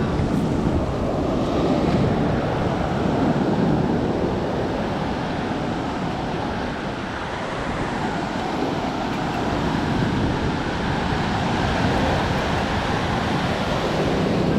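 Rushing noise of sea waves and wind buffeting the microphone, swelling and easing slowly.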